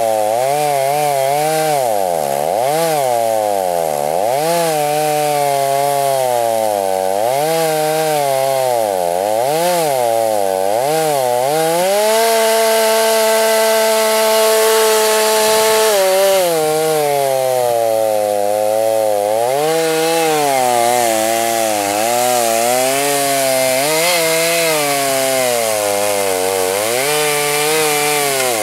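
Two-stroke chainsaw mounted in a Norwood chainsaw mill, ripping lengthwise through a log, its engine pitch wavering up and down as it works through the cut. For a few seconds about twelve seconds in it holds a steadier, higher note.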